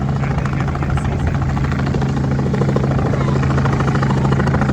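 Training helicopter hovering, its engine and main rotor running steadily with a rapid, even rotor beat.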